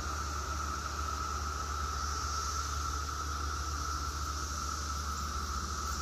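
Dense chorus of periodical cicadas: a steady, unbroken drone on one high note, with a fainter hiss above it and a low steady hum underneath.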